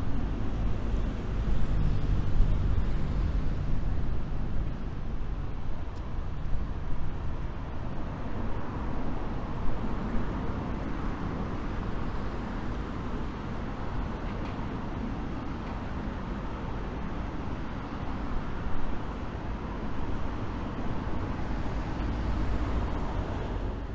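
Steady outdoor city ambience: a low rumble of road traffic, heaviest in the first few seconds.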